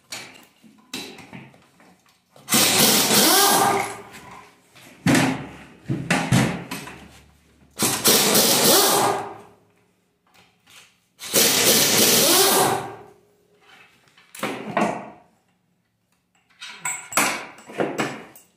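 A power impact wrench running in bursts, three long ones of about a second and a half and several shorter ones, undoing the crankcase bolts of a Toyota 1FZ straight-six.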